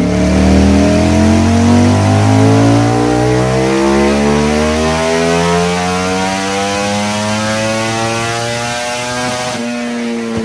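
Motorcycle engine pulling under load, its pitch climbing slowly and steadily as it accelerates in gear, then falling as the throttle is closed near the end.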